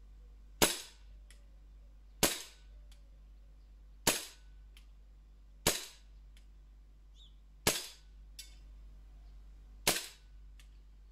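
Inokatsu Sig Sauer P226 CO2 blowback airsoft pistol firing six single shots, spaced about one and a half to two seconds apart. After each shot comes a faint tick, which is the BB striking the gate.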